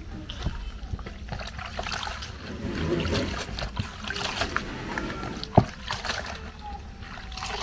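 Water splashing and trickling as something is handled in it, with scattered clicks and one sharp knock about five and a half seconds in.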